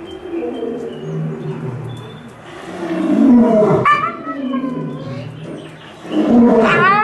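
Timber wolf howling, a howl unlike the usual wolf howl: low, rough drawn-out notes, a sudden high rising note about four seconds in, then a louder wavering howl near the end.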